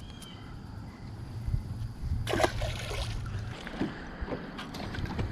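Water lapping and sloshing against a fishing boat's hull, with a few light clicks and one short louder splash-like burst about two and a half seconds in.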